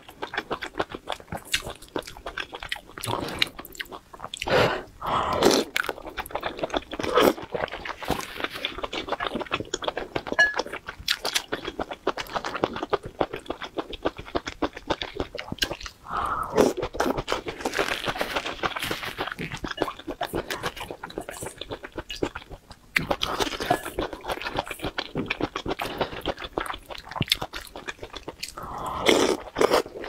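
A person chewing and crunching on food from a bowl of spicy hotpot. Many small wet mouth clicks run on steadily, with louder bites a few times.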